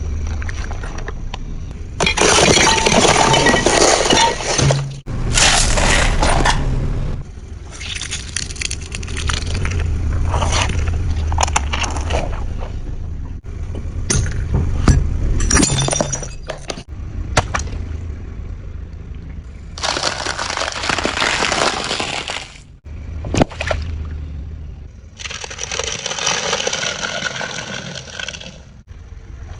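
Brittle objects being crushed under a vehicle's wheels or tracks, cracking and breaking with a glassy clinking. It comes in about six separate crunching bouts over a low rumble, each cut off abruptly.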